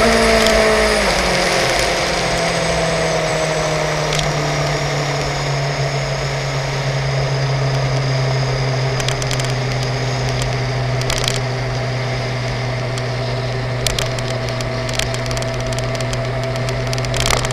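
Suzuki GSX-R750 K5 inline-four engine falling in pitch as the throttle closes, then running at a steady cruise under a constant rush of riding wind. A few brief clicks come through in the second half.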